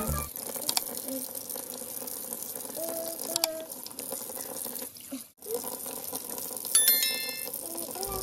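Water running in a stainless-steel kitchen sink as cleaned pinfish are handled. About seven seconds in, a short electronic bell chime sounds.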